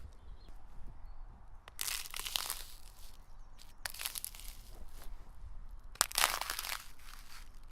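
Footsteps breaking through the thin ice of frozen puddles: three slow crunching, cracking steps about two seconds apart.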